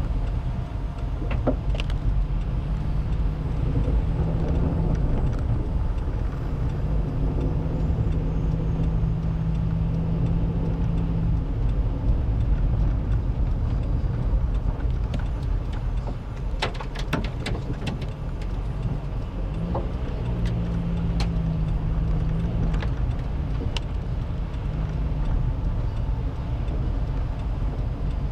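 Car cabin noise while driving slowly on a wet, slushy road: a low engine hum and tyre rumble that shift a little in pitch, heard from inside the car. A cluster of sharp clicks and knocks sounds about two-thirds of the way through.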